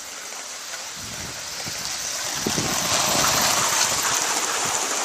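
Gauge 1 live-steam model locomotive and its coaches running past on garden track: a steam hiss and the rattle of wheels on the rails, growing louder as the train nears and loudest about three and a half seconds in.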